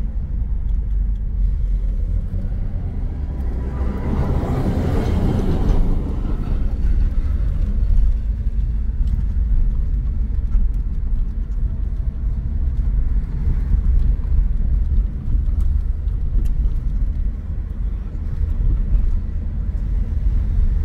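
Car driving along a road: a steady low rumble of engine and road noise, with a louder rushing noise that swells and fades about four to six seconds in.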